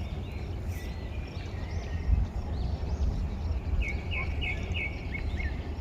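Wind rumbling on the microphone while small birds chirp; about four seconds in, one bird gives a quick run of about five bright chirps.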